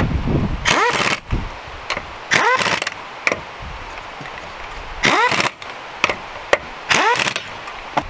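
Air impact wrench running the lug nuts onto the refitted wheel: four short bursts, each with a rising whine as the tool spins up, about two seconds apart.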